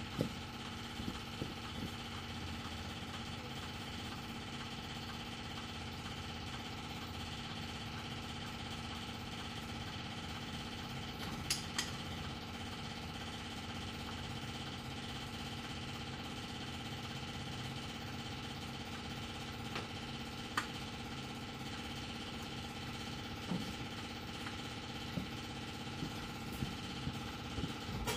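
AMC Eagle's 4.2-litre straight-six idling steadily on a freshly rebuilt Motorcraft 2150 two-barrel carburettor whose idle mixture is being adjusted, with a few short sharp clicks about halfway through.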